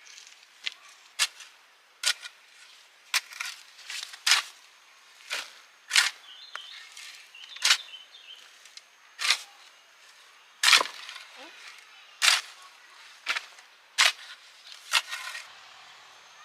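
Plant stems being snapped by hand: a string of sharp, short snaps, about one a second at an uneven pace.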